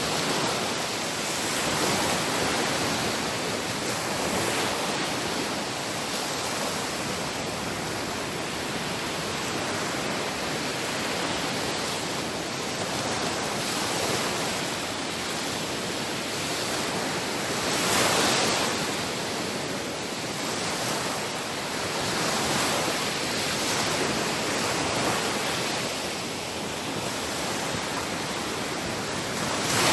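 Sea waves breaking and washing onto a shore in a continuous hiss, swelling gently every few seconds, with one bigger wave about 18 seconds in.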